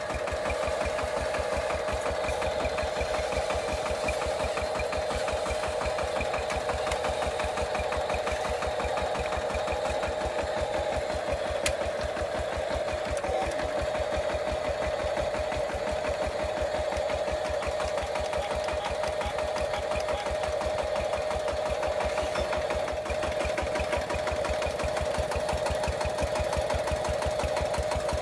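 Small geared electric motor on a home-built RC tractor-and-drilling-rig model whirring steadily, a constant machine hum with a fast even buzz underneath.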